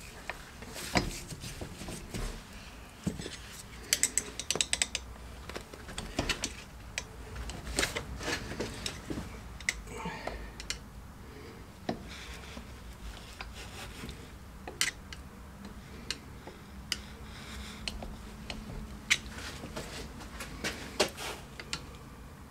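Metal hand tools clinking, tapping and knocking against a suspension wishbone while a rubber silent block is worked into place: scattered sharp clicks with a few quick rattling runs.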